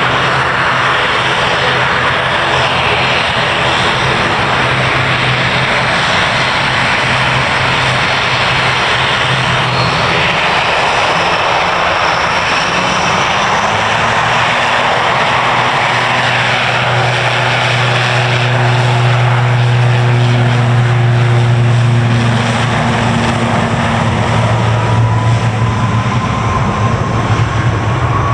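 Airliner engines running loud and steady, a dense rush over a low hum; the hum drops away about ten seconds in, comes back stronger, and a rising whine joins near the end.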